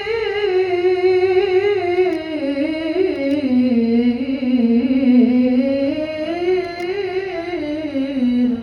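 A Qur'an reciter's solo voice draws out the final syllable of a verse in one long, ornamented melodic line with quick wavering trills. The pitch slides downward, rises and falls again, and then stops suddenly near the end.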